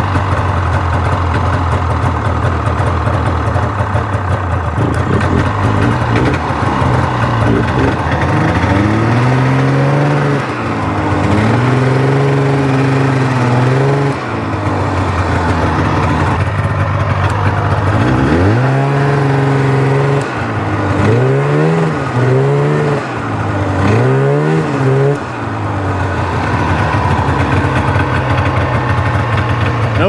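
Polaris snowmobile's two-stroke engine running just after being started, idling and revved up and down. There are two longer revs about eight seconds in, then four quick blips of the throttle around twenty seconds in.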